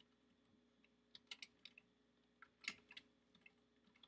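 Quiet typing on a computer keyboard: scattered keystrokes in short irregular runs, the busiest cluster a little under three seconds in.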